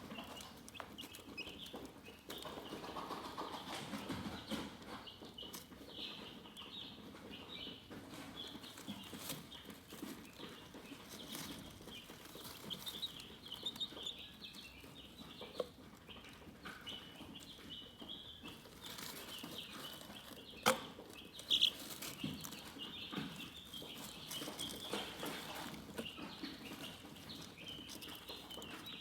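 Chickens chirping, a steady stream of many short high chirps with some lower clucking, and a couple of sharp clicks about two-thirds of the way through.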